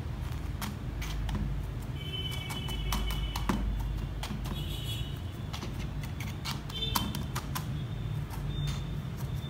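Scattered light clicks and taps from handling a plastic bottle pot, the chopstick and loose soil, over a steady low rumble. A few brief high tones come in around the middle.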